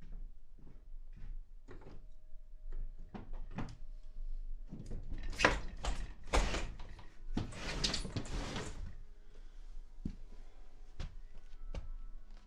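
Sliding glass door sliding open in two loud, noisy pushes, after a run of light knocks and followed by a few sharp clicks.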